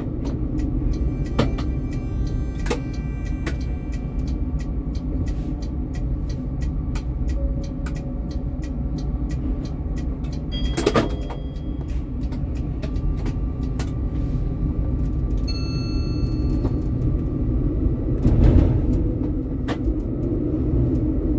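Helsinki tram running along its rails: a steady low rumble of wheels and running gear with fine rapid clicking. There is a sharp clank about halfway through, a short ringing tone a few seconds later, and a brief louder surge of rumble near the end.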